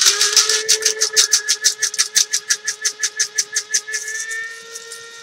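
Small electric blade spice grinder running, whirring steadily while whole spices and black peppercorns rattle rapidly against the blade and cup as it is shaken. After about four seconds the rattle fades into a smoother whir as the spices break down.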